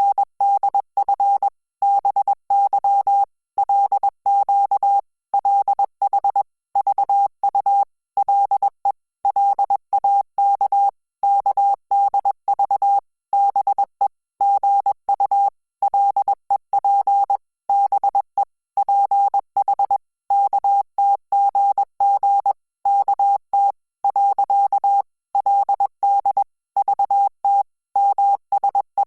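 Korean (Hangul) Morse code sent at 20 words per minute: a single steady beep keyed on and off in short dots and longer dashes, with gaps between letters and words.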